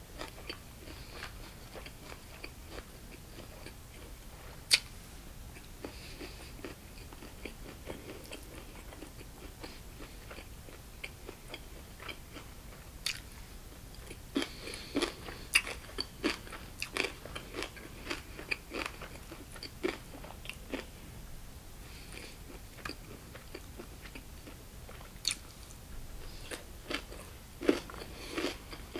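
Close-miked chewing of a bossam meal of boiled pork, kimchi and vegetables, with wet mouth sounds and crisp crunches that come thickest in the middle. A couple of sharp clicks stand out, one about five seconds in and one near the end.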